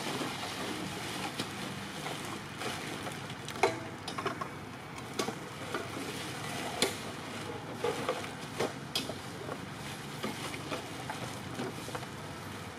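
Black plastic garbage bags rustling and crinkling in irregular short crackles as a long-tailed macaque rummages through them for food.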